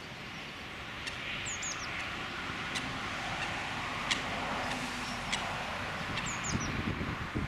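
Outdoor ambience with a rushing noise from a distant vehicle passing, swelling toward the middle and fading again. A small bird gives quick high chirps twice, and a few faint ticks sound through it.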